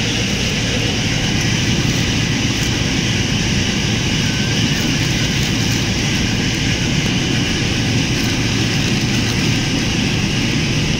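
Steady, loud mechanical drone with a rushing noise, unchanging throughout.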